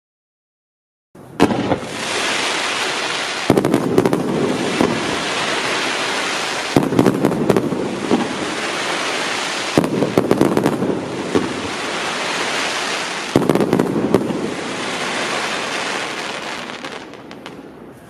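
Celtic Fireworks Champagne Fizz fan cake firing: about five volleys of sharp launch pops, roughly every three seconds, with a steady hiss of burning effects between them. It starts about a second in and fades out near the end.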